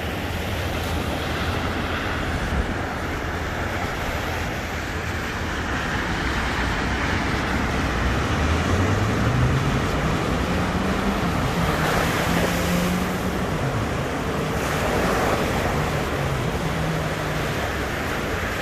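Sea waves washing onto a sandy beach, with wind buffeting the microphone. An engine comes up in the middle, rising in pitch and holding, then again more faintly near the end.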